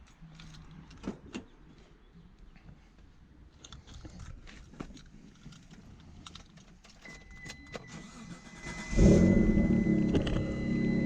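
Keys jingling and small clicks, then a steady high tone comes in about seven seconds in. About nine seconds in, the 1994 Mitsubishi 3000GT VR4's twin-turbo 3.0-litre V6 starts and keeps running.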